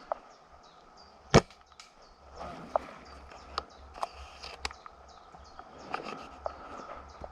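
A single sharp airsoft gun shot about a second and a half in, followed by several fainter clicks and snaps.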